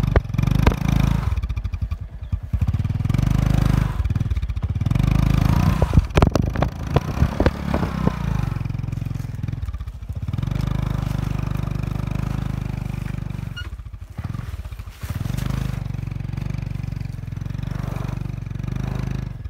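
Honda motorcycle's small single-cylinder engine revving hard in repeated bursts, easing off and picking up again several times, while the rear tyre spins and digs into the dirt. Flung clods and grit clatter and tick against the bike, thickest near the middle.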